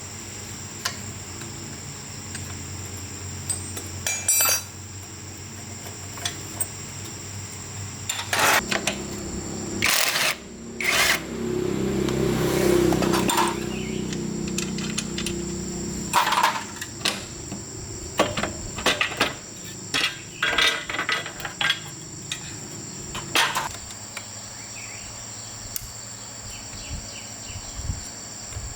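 Scattered sharp metallic clicks and knocks of hand tools and parts being handled during motorcycle repair work, over a steady high insect chirping. A low, denser rumble of work noise runs for a few seconds around the middle.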